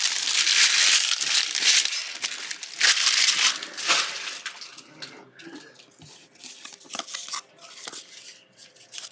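Basketball card pack wrapper crinkling and tearing open for about four seconds, then quieter rustling and light clicks of the cards being handled.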